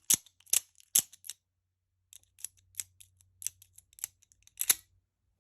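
Lightning OTF automatic knife being cycled over and over, its slide and spring-driven blade making sharp metallic clicks: three loud ones in the first second, a run of fainter ones, then a loud double click near the end. The knife is malfunctioning.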